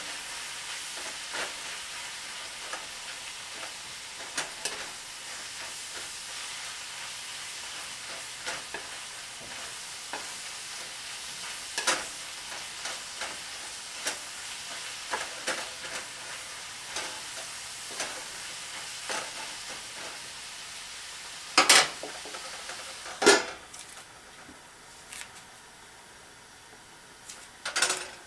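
Hamburger, spinach and mushrooms sizzling in a nonstick skillet while a wooden spatula stirs and taps against the pan. About 22 seconds in come two loud metal clanks of pans and a lid being handled, after which the sizzle is quieter, and another clank comes near the end.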